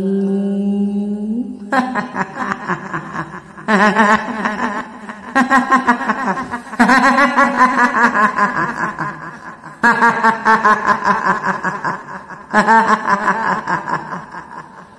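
Kuntilanak ghost laugh: a high, quavering 'hihihi' cackle in about six long, drawn-out bouts with short breaks between them, after the drawn-out end of a slow, deep spoken word.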